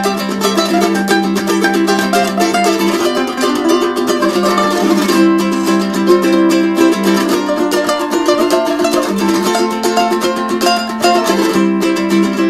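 Background music led by quickly plucked strings, steady throughout.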